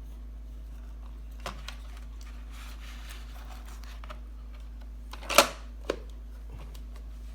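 Small plastic clicks and light rustling of a robot vacuum's filter frame being handled and fitted, with one sharp snap a little past halfway and a smaller click just after, as the frame clicks into place.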